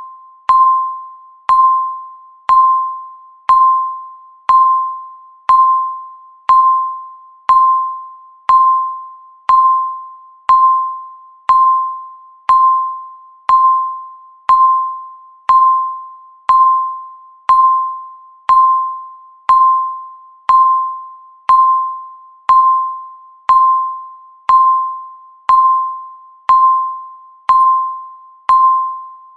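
Countdown timer beep sounding once every second, about 29 times: a single-pitched electronic beep with a sharp start, each fading away before the next, marking each second of the countdown.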